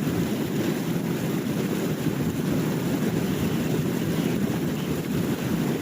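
Steady low rushing noise of sea wind buffeting the microphone, mixed with the wash of surf.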